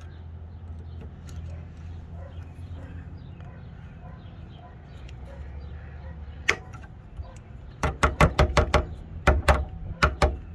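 Sharp clicks and knocks from hand work with tools and the hose fitting over a steady low hum: a single click, then a quick run of about seven knocks in under a second, then a few more near the end.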